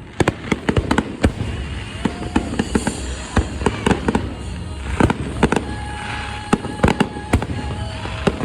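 Fireworks going off: many sharp bangs and pops in quick, irregular succession, several a second at times.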